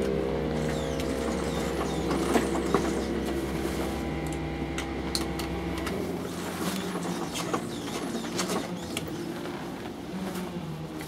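A steady machine hum made of several tones, whose deepest part cuts out about six seconds in. Over it come scattered light clicks and knocks as hands work on a kart's rear wheel and tyre.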